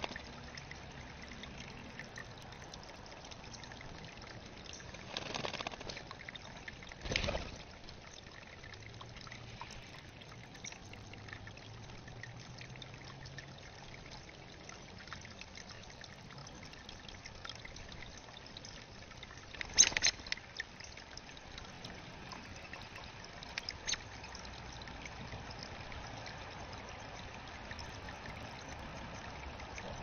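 Steady trickle of water running into a small rock-lined garden bird bath pond. A few short, sharp sounds break through, the loudest a cluster about twenty seconds in.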